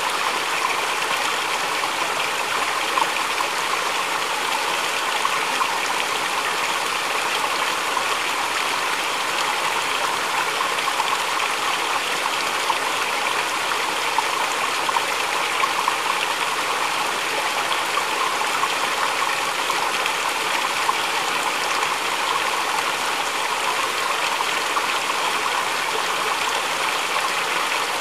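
Water pouring from a bamboo spout onto rocks and babbling through a shallow rocky stream: a steady, unbroken splashing and trickling.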